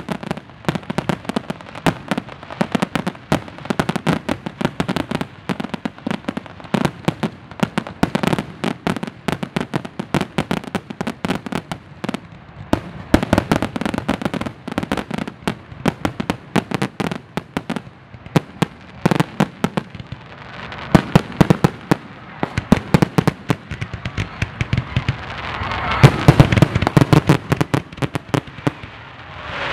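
Aerial fireworks finale: a rapid, continuous barrage of shell bursts and bangs with hardly a gap between them, growing denser and louder over the last several seconds.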